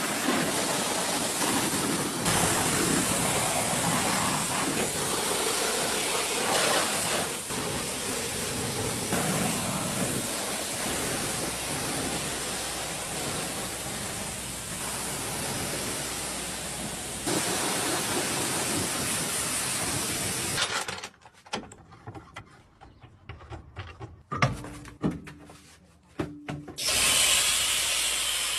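Pressure washer spraying water in a steady loud hiss. The spray stops for several seconds about two-thirds of the way through, leaving a few knocks and a brief hum, then starts again near the end.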